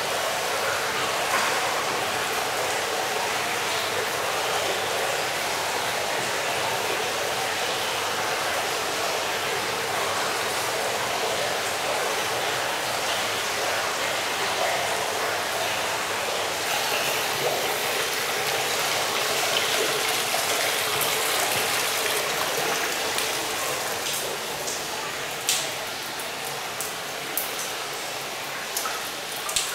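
Running water, a steady even rush, with a few sharp drops standing out near the end.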